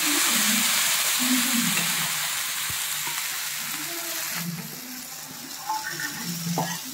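Thick rice and black gram batter sizzling as it is poured onto a hot, oiled iron tawa. The hiss is loudest at first and eases about four and a half seconds in, to a quieter sizzle as the pancake settles.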